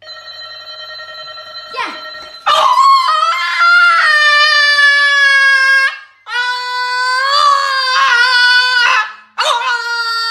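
A quieter steady electronic tone, then a black French bulldog howling: three long, wavering howls with short breaks between them.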